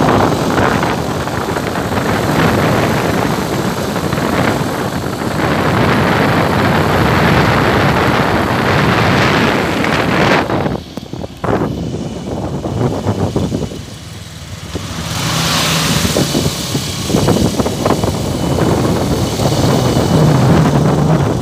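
Wind rushing over the microphone and a motor vehicle's engine and road noise while riding on an open vehicle along a road. The noise eases briefly about halfway through.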